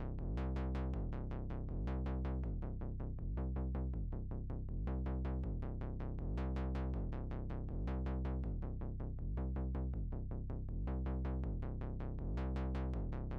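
Electronic background music: a quick, even pulse of about four notes a second over low held bass notes that change about once a second.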